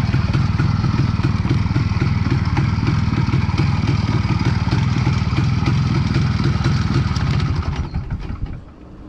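IZh Planeta 4's single-cylinder two-stroke engine running steadily with a dense rapid beat, then fading out over about a second near the end.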